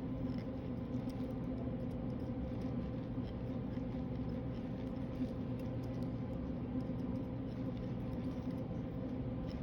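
Steady hum of a portable dental unit running, with faint scratching and small ticks from a hand condenser packing amalgam into a tooth preparation.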